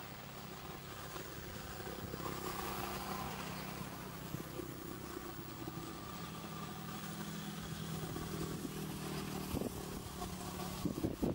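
An engine running steadily with a low hum that slowly grows louder, and a few sharp knocks near the end.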